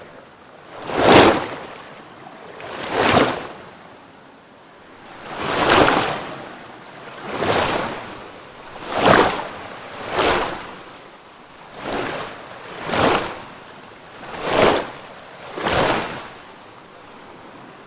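Ocean waves crashing: about ten surges of surf, one every one to two seconds, each swelling up and falling away.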